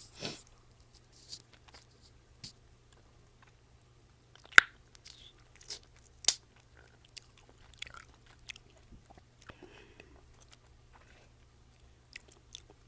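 Close-miked gum chewing: irregular wet clicks, smacks and pops of mint chewing gum in the mouth, with one loud sharp snap a little over a third of the way in.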